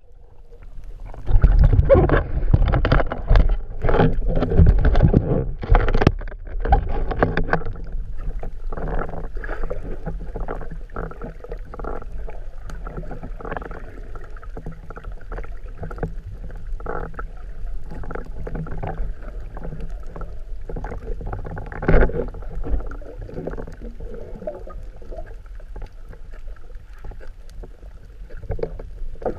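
Muffled water sound picked up by a camera underwater: irregular splashing and bubbling for the first several seconds, then a steadier choppy wash with scattered knocks, and one sharp knock about 22 seconds in.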